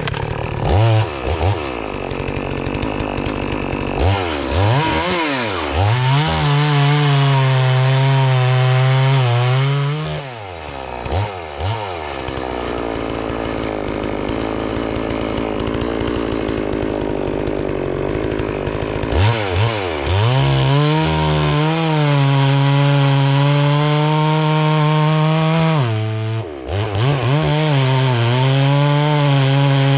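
A 72cc two-stroke FarmMac F380W chainsaw with a 28-inch bar is run at high revs, cutting through a poplar log. Its pitch holds high and steady, then drops back to a low idle twice before it climbs again.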